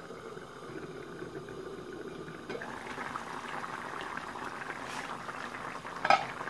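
Small-fish curry boiling in a frying pan, a steady low bubbling under an aluminium lid at first, then brighter and crackly with the pan uncovered from about two and a half seconds in. A brief sharp clink near the end.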